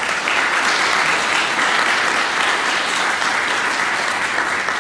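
An audience applauding: many people clapping together, steadily and loudly.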